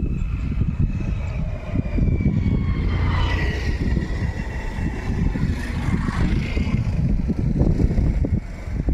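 An engine passing by: a whine that slowly falls in pitch and swells to its loudest midway, over a steady low rumble.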